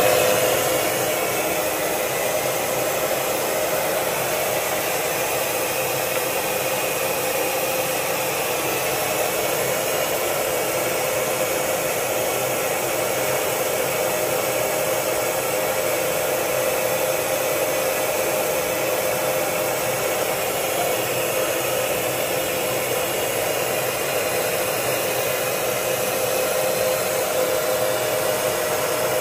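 A fan-driven electric motor, like a blower or vacuum, running steadily as a loud rushing hiss with a constant hum.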